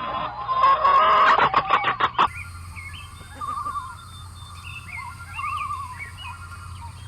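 Chickens clucking and calling. About two seconds in the sound changes abruptly to quieter, short chirps and trilling calls over a steady hiss.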